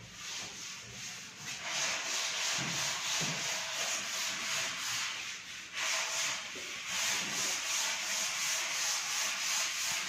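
Sanding: a rough rubbing noise in quick, repeated strokes, dipping briefly about one and a half seconds in and again just before six seconds.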